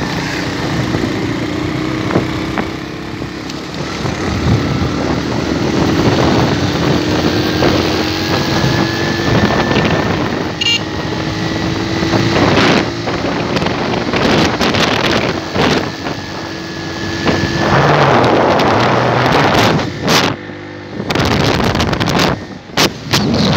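Motorcycle engine running steadily while riding, its hum climbing slowly in pitch as the bike gathers speed, mixed with wind rushing over the microphone. In the last few seconds the wind noise takes over, with a couple of brief dropouts.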